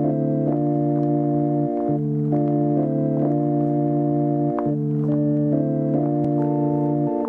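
Electric organ playing a repetitive pattern of sustained chords that shift about every half second over a held bass note, which restarts about every two and a half seconds.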